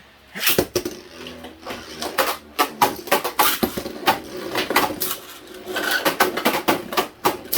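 Beyblade Burst tops, Infinite Deathscyther and Burn Hyperion, spinning and clashing in a plastic stadium: a rapid, irregular run of hard plastic clicks and knocks.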